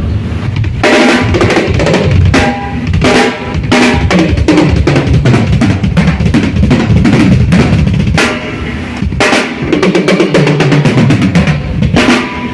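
Acoustic drum kit played continuously and loudly during a sound check: a steady stream of bass drum and snare hits with fast fills and ringing drum strikes.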